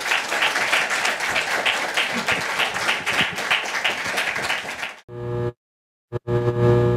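Audience applauding, a dense patter of many hands that cuts off suddenly about five seconds in. Near the end comes a short music sting: a low held chord, broken by a brief gap.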